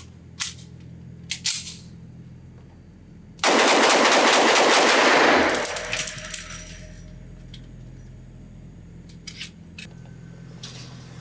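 Coonan Arms Model A .357 Magnum 1911-style pistol fired in a rapid string of shots lasting about two seconds, ringing in an indoor range. A few sharp handling clicks come before it, and a couple more follow.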